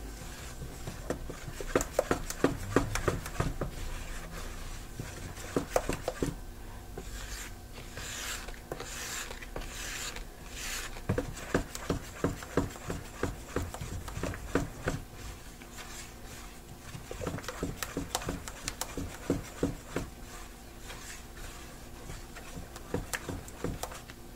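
A spatula stirring homemade liquid laundry soap in a plastic basin: repeated scraping and tapping strokes against the basin, with a few longer swishes through the liquid about a third of the way in. The mixture is thickening as cold water is stirred in.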